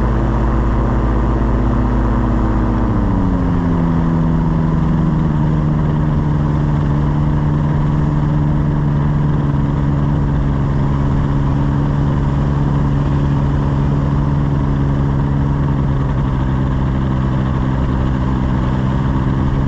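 Engine and propeller of a tandem paramotor trike running in flight. The engine note drops about three seconds in, then holds steady.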